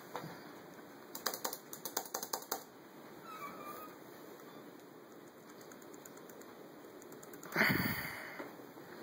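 A quick, irregular run of about a dozen sharp clicks, like keys tapped on a laptop keyboard, starting about a second in. Near the end comes a short, louder rustling burst, like a hand brushing close to the microphone, over a faint steady hiss.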